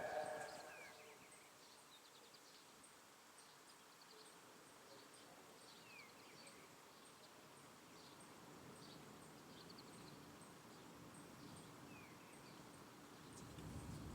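Near silence after a siren's voice message, its echo dying away in the first second. Faint short bird chirps come now and then, over a faint, regular, high-pitched ticking.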